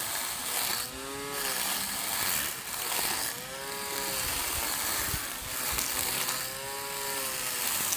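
Small handheld cordless lawn mower's motor whining while cutting grass. Its pitch swells up and falls back three times, over a steady hiss of cutting.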